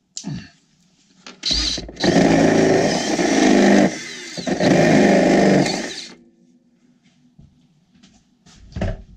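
Cordless drill with a step drill bit boring a hole through the Airstream's aluminum interior wall panel. The drill runs for about four seconds, easing off briefly midway, then stops.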